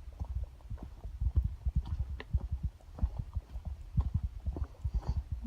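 Handling noise from a hand-held camera carried while hiking: a run of low, irregular thumps and rumble, several a second.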